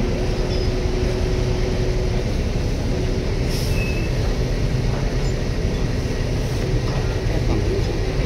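Heavy diesel engine running steadily: a loud, even low rumble with a faint steady hum over it.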